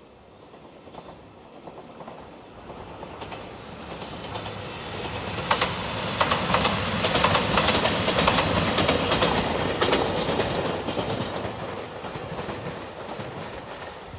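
A three-car diesel limited express train passing at speed. The sound builds up, peaks in the middle with a dense clatter of wheels clicking over the rail joints, then fades as the train moves away.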